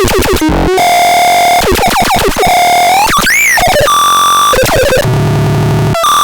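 Electronic synthesizer playing harsh, buzzy tones that jump quickly from note to note, with some notes held and a pitch sweep up and back down about three seconds in.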